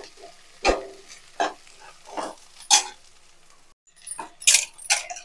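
A metal slotted spatula stirring and scraping frying onion-and-spice masala in a kadai: a series of separate scrapes and knocks against the pan, about one every half second to a second, over a light sizzle.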